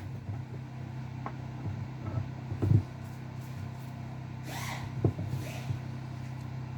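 Workshop sounds: a steady low hum, with a few scattered knocks and clunks of parts or tools being handled. The loudest clunk comes about two and a half seconds in.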